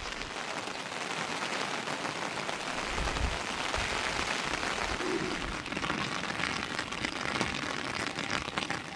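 Heavy rain falling steadily, a dense patter of many small drop impacts.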